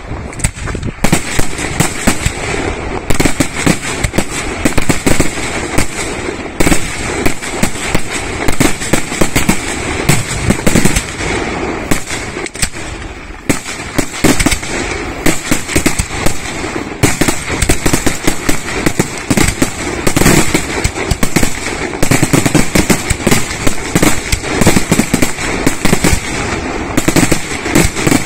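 Aerial firework shells bursting in a dense, continuous barrage, sharp bangs following one another several times a second with no pause.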